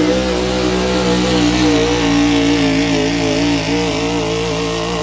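Gas engine of a 1970s Ford F-series pickup held at high revs under full throttle while dragging a weight-transfer pulling sled. The pitch stays high and steady, wavering slightly.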